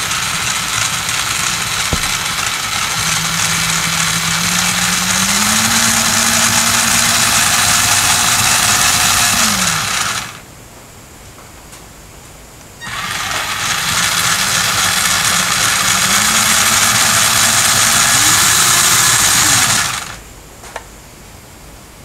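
Toy 4WD RC rock crawler's electric drive running with its wheels spinning freely in the air, a loud whine whose pitch steps up partway through. It runs for about ten seconds, stops, then runs again for about seven seconds.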